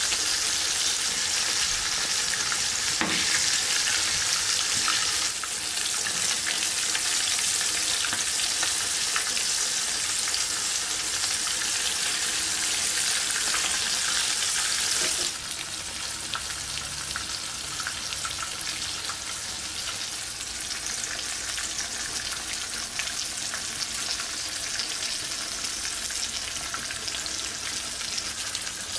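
Whole sea bream shallow-frying in hot oil in a pan: a steady sizzle full of fine crackles, turning quieter about halfway through.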